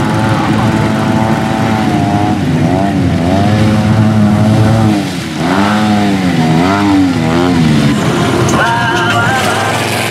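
Off-road vehicle engines revving, the pitch rising and falling over and over, with a brief drop in level just after five seconds. A higher tone that steps in pitch comes in near the end.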